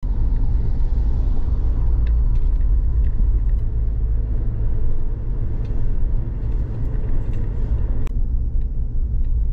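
Suzuki Jimny driving along a road: a steady low rumble of engine and road noise, with a few faint clicks.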